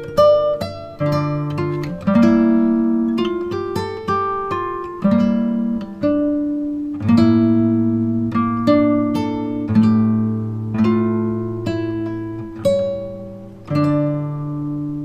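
Background music: a gently plucked acoustic guitar playing slow, ringing notes and chords.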